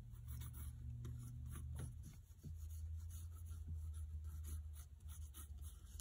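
Pencil scratching on paper in many short strokes, tracing around the edge of a cut-out letter stencil, over a low steady hum.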